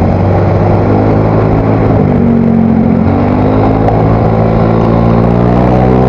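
Single-cylinder Yamaha Mio Soul GT scooter engine running through an aftermarket exhaust while riding. The pitch rises and falls briefly about two seconds in and climbs again near the end as the throttle changes.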